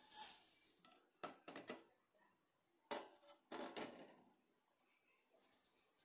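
Granulated sugar poured from a steel bowl into an empty saucepan, a brief hissing rush at the start. Two quick runs of short clattering knocks follow, about a second in and again around three seconds in.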